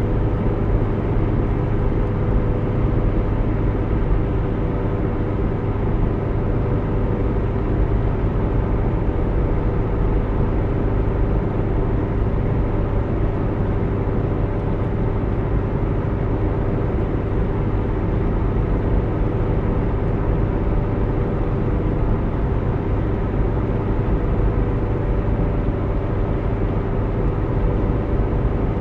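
A car driving steadily on a motorway: continuous, even road and engine noise with a steady low hum.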